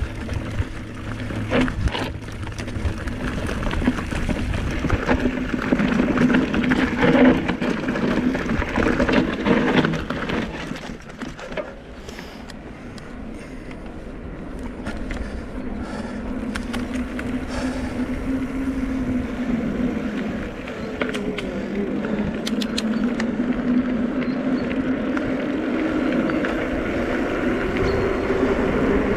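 Electric mountain bike ridden over a rocky trail, its frame and tyres clattering and rattling over stones. After a short drop in level it rolls more smoothly on asphalt with a steady hum and wind, and the hum rises in pitch near the end as the bike speeds up.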